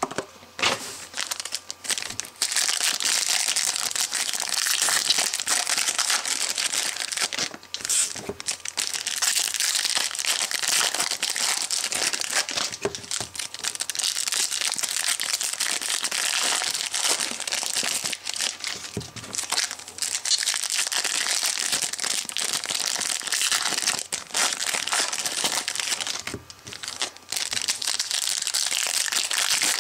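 Foil trading-card pack wrappers being handled, torn open and crinkled by hand, a near-continuous crackly rustle that briefly stops a few times.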